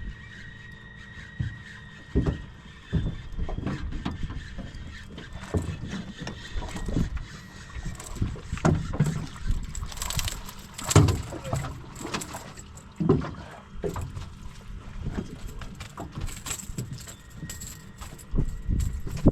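Wind rumbling on the microphone with irregular knocks and clatter on a small boat while a hooked fish is reeled in and landed.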